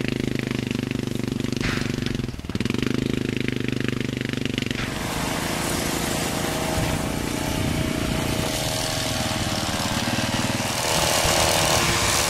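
A steady engine note with a brief dip about two seconds in gives way, about five seconds in, to a quad bike's engine running as it drives, growing louder near the end.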